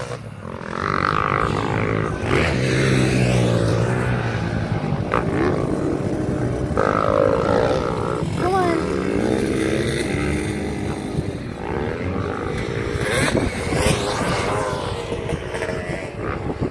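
Motocross bike engines revving hard and dropping back as the riders accelerate, shift and brake around the dirt track, several bikes overlapping at different distances. The pitch rises and falls repeatedly.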